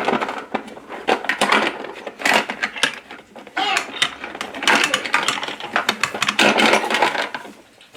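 Plastic toy tools clattering and rattling in the drawer of a toy tool chest as it is rummaged through, in quick irregular clumps of clicks.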